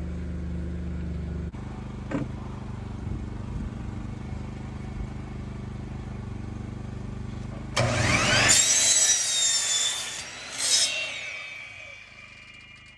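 A steady low hum runs for about eight seconds. Then an electric saw starts with a quickly rising whine, runs at speed and cuts plywood. Near the end it spins down with a fading whine.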